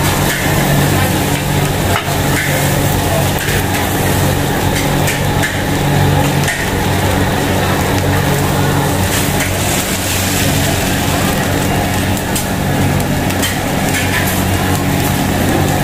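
A steady low mechanical hum, like a motor or fan running, over a noisy background, with a few scattered clicks and knocks.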